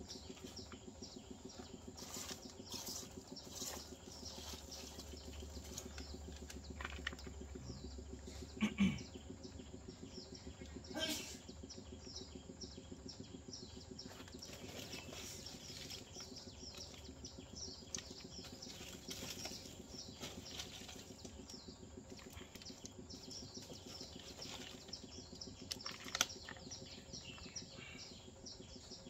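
Faint rustling and small clicks of hands pressing and settling potting mix around an orchid in a plastic pot, with a few sharper ticks scattered through.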